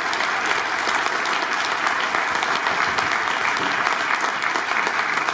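Audience applauding: dense, steady clapping that holds an even level throughout.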